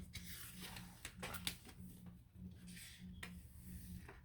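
Faint paper swishing and rubbing as sticker-book pages are turned, several soft swishes with a few light taps.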